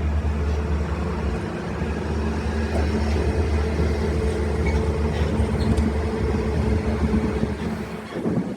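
Parking-lot tram moving through the lot: a steady low engine drone with a hum, over rolling and wind noise. It eases off a little near the end.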